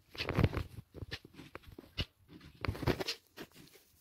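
A small Shih Tzu–Maltese dog crunching and chewing dry kibble: irregular crunches and sharp clicks of the teeth, loudest about half a second in and again just before three seconds in.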